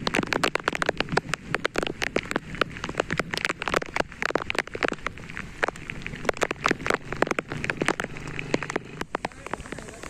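Rain falling, with many separate drops striking close to the microphone in a dense, irregular patter of sharp ticks.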